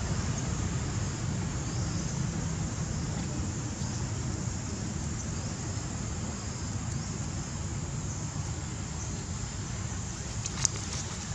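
Steady outdoor background: a low rumble with a thin, high drone of insects over it. A single sharp click sounds near the end.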